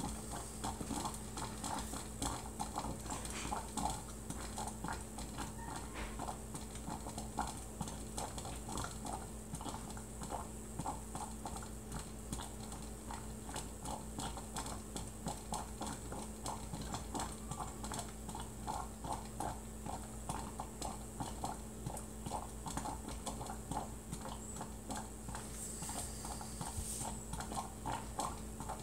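Silex glass stovetop coffee percolator perking: water surging up the pump tube and spurting into the top, a rapid, uneven run of gurgling pops and knocks.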